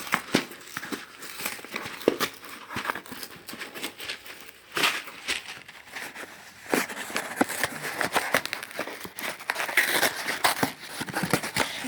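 A plastic bag of rice being handled and crinkled: irregular rustling with many small clicks and crackles.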